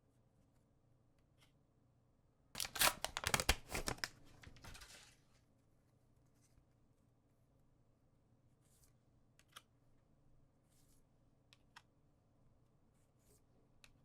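A trading-card booster pack wrapper being torn open, a loud crackling rip of about two seconds, followed by a few faint clicks and ticks of handling.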